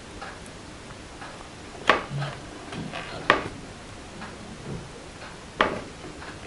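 Three sharp knocks, a second or two apart, with a few light taps and handling noises between them, as a plastic bottle of tacky glue is handled.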